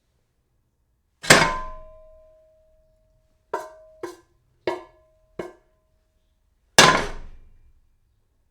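Metal kitchenware being struck: a loud clang with a short ringing tone, four lighter knocks in quick succession, then another loud clang.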